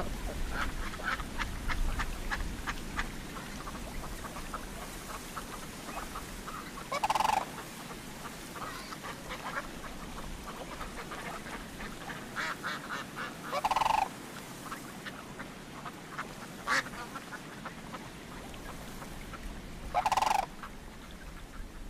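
Waterfowl calling: three loud calls, each about half a second long and roughly six seconds apart, over a steady scatter of shorter, softer calls.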